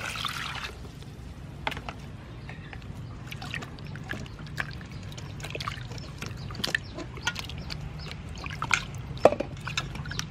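Water pouring into a stainless steel bowl of peeled vegetables, stopping about half a second in; then hands rubbing and swishing carrots, potatoes and an onion in the water, with scattered small splashes and knocks.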